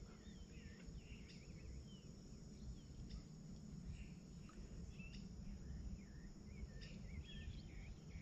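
Faint outdoor ambience: birds chirping repeatedly, with a steady high-pitched insect buzz and a low background rumble.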